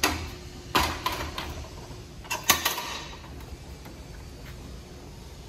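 Aluminium barrel hand truck clanking and rattling as it takes hold of a plastic drum and is tilted back onto its wheels: a burst of knocks right at the start, more rattling about a second in, and two sharp clanks at about two and a half seconds, then quiet.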